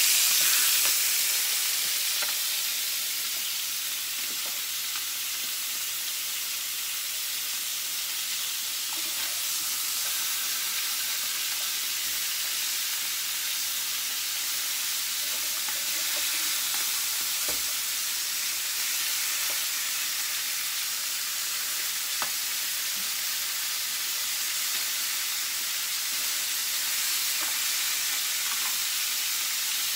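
Chicken pieces sizzling as they brown in a skillet, a steady frying hiss with a few light clicks. The hiss is a little louder in the first couple of seconds.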